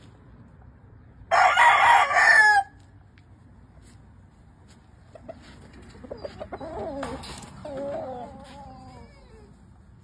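A gamefowl rooster crows once, loud and about a second and a half long, starting about a second in. Fainter chicken calls follow in the second half.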